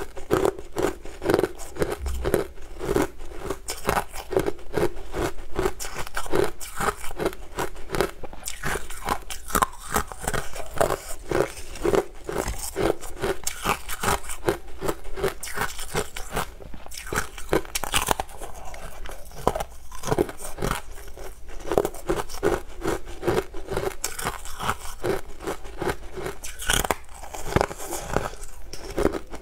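Close-up biting and chewing of sugar-dusted slabs of frozen honey ice: a dense, steady run of crisp cracks and crunches, several a second, as the ice breaks between the teeth.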